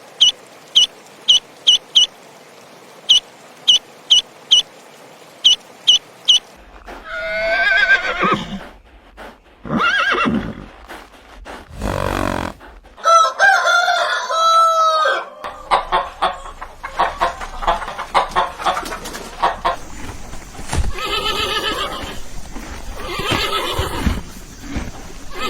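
Farm poultry calling. First come quick groups of short, high chirps for about six seconds, then a long string of varied clucks and calls, with crowing among them.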